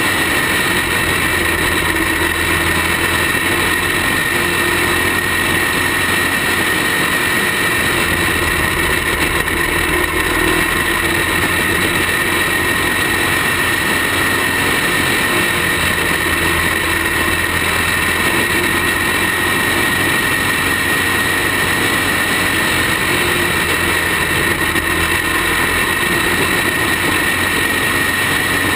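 Racing kart engine running at speed, recorded by a camera mounted on the kart, a steady loud drone with little change in pitch.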